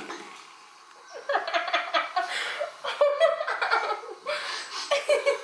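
A woman laughing hard in a long run of giggles that starts about a second in.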